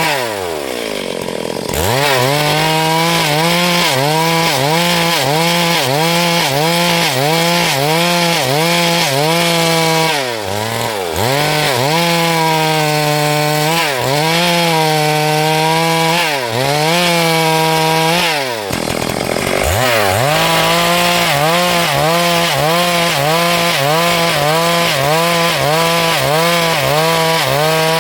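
Stihl MS382 two-stroke chainsaw running at full throttle while ripping a hardwood log lengthwise into planks. Its engine note sags and recovers in an even rhythm, a little over once a second, as the chain is worked through the cut. The pitch falls sharply near the start and dips briefly twice more before climbing back.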